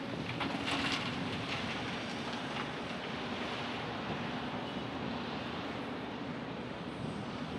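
Steady rumble of street traffic and roadworks, with a few sharp clanks around the first second.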